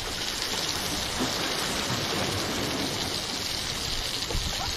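Fish sizzling in a cast-iron pan: a steady, even crackling hiss as it finishes frying.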